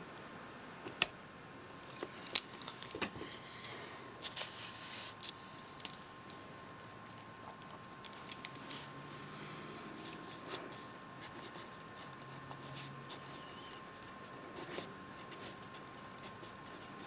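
Pen writing on lined spiral-notebook paper, with uneven scratchy strokes and scattered clicks, two of them sharp and loud about one and two and a half seconds in.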